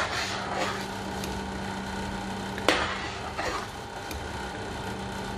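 Metal spoon stirring milky mango payasam in a steel pan, scraping and tapping against the pan, with one sharp knock on the pan about halfway through. A steady low hum runs underneath.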